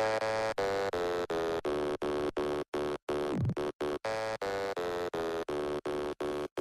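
Electronic backing music: a held synth chord chopped into rapid stuttering pulses, about three a second, with a brief falling sweep about halfway through.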